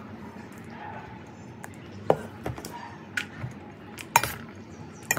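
Serving spoon clinking and scraping against a stainless steel pot while bhel puri is scooped into plastic bowls: several sharp clinks, the loudest about two seconds in and again about four seconds in.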